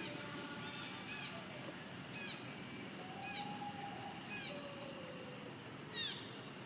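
Monkey giving short, high-pitched squeaking calls, each sliding down in pitch, about once a second, with a few longer, lower drawn-out calls in between.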